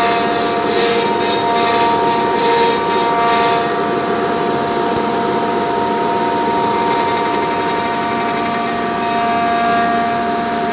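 NA-48 CNC router's spindle running with a steady multi-tone whine over the noise of the bit milling kitchen cabinet fronts. Its highest whine drops out about seven seconds in.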